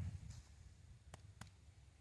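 Near silence: faint background with two brief faint clicks about a second in.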